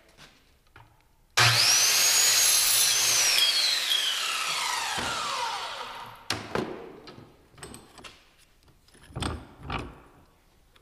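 Angle grinder starting suddenly about a second and a half in and cutting through a steel pipe held in a bench vise. Its whine falls steadily as the wheel winds down, and the run is followed by a few metal knocks near the end.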